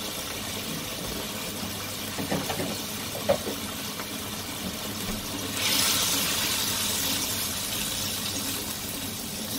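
Sauce and vegetables sizzling in a wok, with a light knock or two. About halfway through the sizzle turns louder and brighter as a spatula starts stirring the stir-fry.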